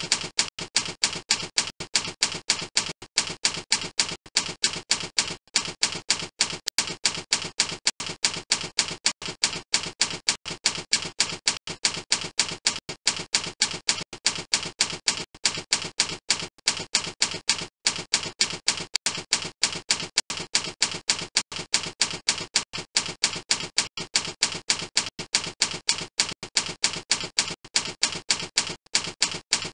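Typewriter-style typing sound effect: a steady, unbroken run of rapid key clicks, several a second, keeping time with text being typed onto the screen.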